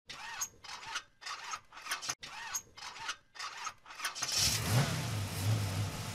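Car engine being started: a string of short, separate bursts, then about four seconds in it catches and settles to a steady low idle.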